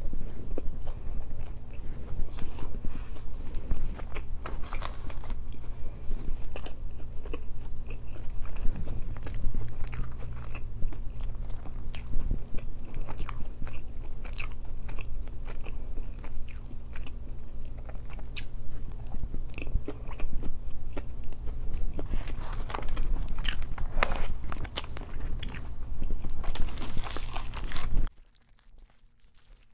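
Close-miked chewing and biting of a chicken wrap's filling of grilled chicken and lettuce: wet mouth sounds with crunchy bites. There are louder crackly sounds a few seconds before the end, and then the sound drops away abruptly.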